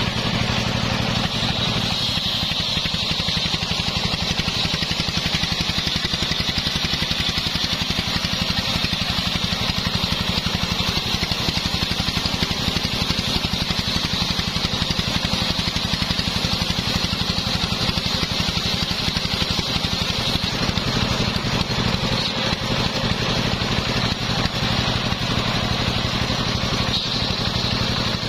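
Homemade engine-driven circular sawmill running steadily, its large blade turned by V-belts, ripping sengon logs into boards. The engine's even firing and the blade's cutting noise are constant and unbroken.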